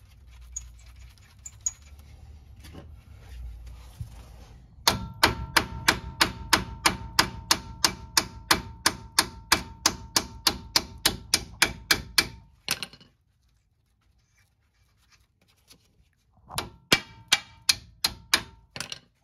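Hammer striking the nut threaded onto a rusted-in lower control arm ball joint stud to drive it out of the steering knuckle: a fast run of about four ringing metal blows a second lasting some seven seconds, then a pause and a second, shorter run near the end. Light tool handling before the first blows.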